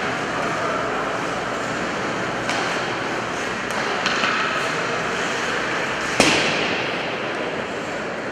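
Ice hockey play in an indoor rink: a steady wash of skates on ice, with a few light clicks of sticks and puck and one sharp crack about six seconds in that echoes around the hall.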